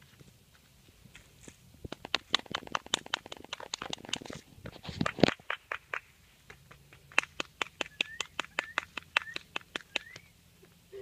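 Someone making rapid kissing and clicking sounds to call the puppies: a quick flurry of sharp smacks, then a steady run of about three a second with short squeaky upward chirps.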